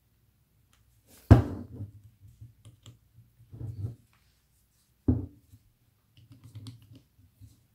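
Handling noise from a cordless drill while bits are swapped in its keyless chuck: two sharp knocks, one just over a second in and one about five seconds in, with rustling and light clicks between. The drill's motor is not running.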